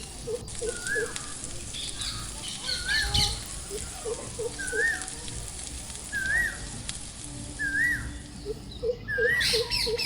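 Wild birds calling: one bird repeats a short rising-and-falling whistle about once every second or so, while lower quick notes come in runs of four near the start and again near the end, with a few higher chirps.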